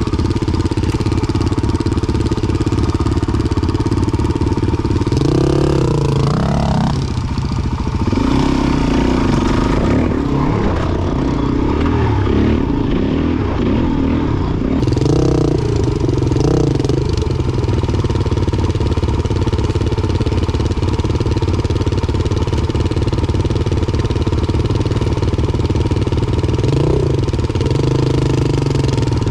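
400 cc single-cylinder four-stroke dirt bike engine running under load off-road. The pitch rises and falls as the throttle is worked, with the clearest revs about five seconds in, again around fifteen seconds, and near the end.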